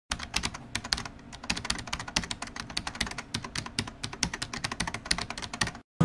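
Rapid, irregular clicking, many clicks a second, which stops abruptly just before the end.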